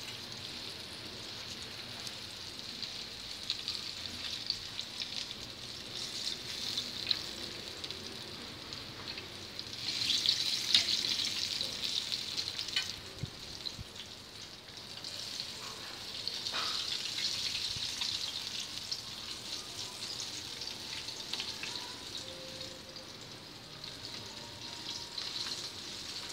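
Flour-battered chicken pieces deep-frying in a pan of hot oil: a steady sizzle full of small crackling pops. It swells louder for a couple of seconds about ten seconds in, and again from about sixteen seconds.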